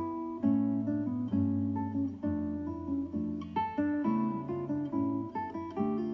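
Background music of plucked acoustic guitar: a steady run of picked notes and chords, each one starting sharply and fading.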